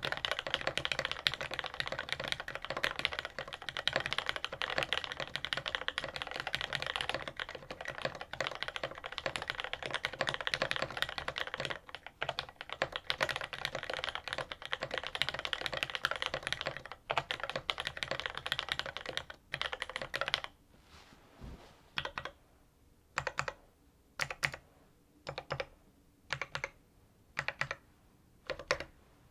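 Fast continuous typing on an LZ CLS mechanical keyboard with lubed retooled Cherry MX Black linear switches on 62g springs, in a stainless steel plate with GMK keycaps. About two-thirds of the way through, the typing stops and single keys are pressed one at a time, a little more than one a second.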